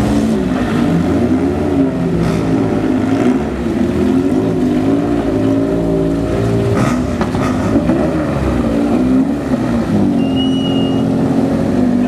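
Air-cooled engines of vintage Porsche race cars, a 356 coupe and then an early 911-style coupe, running at low speed and being blipped as they roll past, the pitch rising and falling repeatedly.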